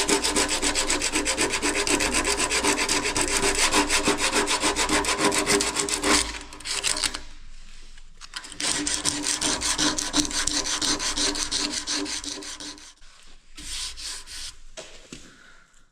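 Light emery paper rubbed back and forth over the cracked seam of a copper radiator in fast, even strokes, cleaning the metal before TIG welding. The strokes pause about six seconds in, resume, then come in a shorter spell near the end and die away.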